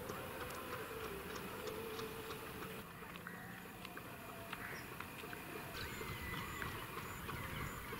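Outdoor ambience: a steady background hiss with many light, irregular clicks and ticks and a few short high whistles.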